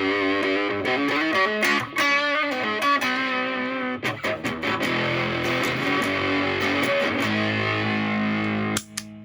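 Electric guitar (Stratocaster) played through a Moollon Fuzz 14, a BC108 silicon Fuzz Face-style pedal, into a Marshall Valvestate on its crunch tone. The fuzz is cleaned up by the guitar's volume for lightly distorted blues lines and a held chord. The chord is choked off near the end, followed by short picked notes.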